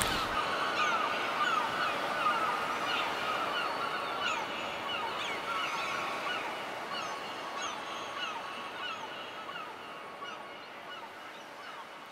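A flock of birds calling: many short, falling calls overlapping, slowly fading out.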